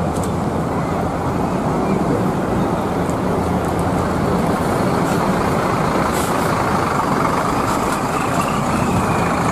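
Sinar Jaya intercity coach's diesel engine running as the bus drives slowly past, a steady engine and road noise, with a brief air hiss about six seconds in.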